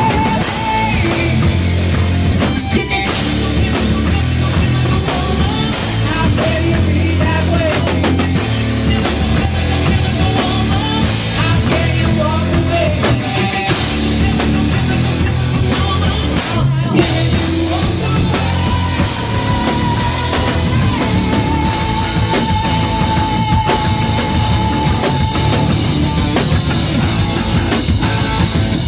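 A live rock band playing loud: a singer's voice over a drum kit and electric bass guitar, with some long held notes in the middle.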